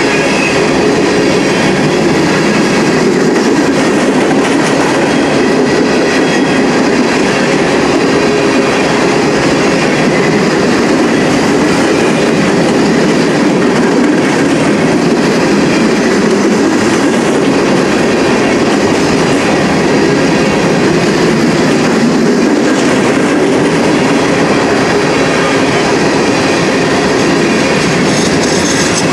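Freight cars of a passing train rolling by at speed: a steady, loud noise of steel wheels running on the rails.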